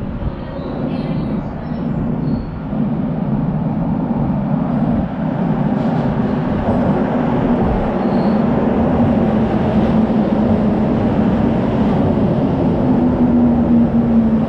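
Toei Ōedo Line 12-000 series linear-motor subway train pulling into an underground station: a rumble of wheels and running gear that grows steadily louder as the train comes alongside, with a low hum coming up near the end. The recording's wind-noise reduction setting was left on, which makes it sound strange.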